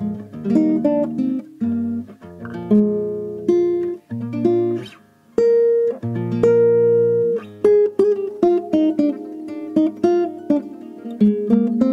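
Acoustic guitar played solo: an instrumental passage of plucked single notes and strummed chords, with a brief lull about four to five seconds in.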